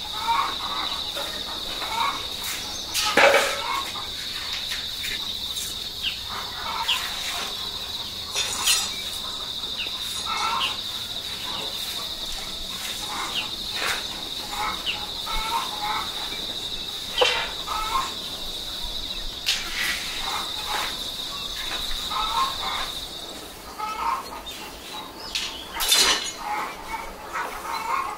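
A steady, high insect drone that cuts off suddenly about 23 seconds in, over the short repeated clucking of chickens. A few sharp knocks sound at intervals.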